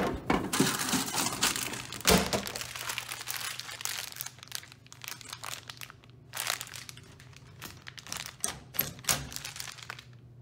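Plastic wrappers of two Peanut M&M's packs crinkling as they are pulled from a vending machine's delivery bin and handled, with a thunk about two seconds in.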